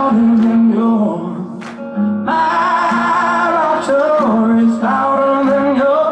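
Male rock singer singing long held notes live, with a rock band accompanying him.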